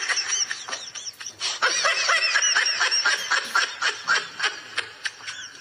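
A man laughing uncontrollably: a long unbroken run of quick, high-pitched laugh bursts.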